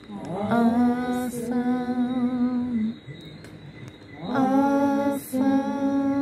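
Women singing slow, long-held notes in two drawn-out phrases, each phrase breaking briefly in the middle.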